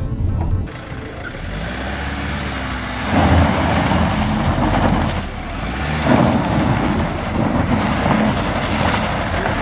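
Renault Master minibus's engine running as it drives slowly up a dirt track, its tyres grinding on the loose ground; the sound swells about 3 seconds in and again about 6 seconds in.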